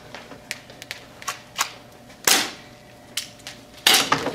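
Sharp clicks and snaps from an airsoft pistol being handled and fired. The two loudest pops come about halfway through and near the end, as the pistol is grabbed in a disarm.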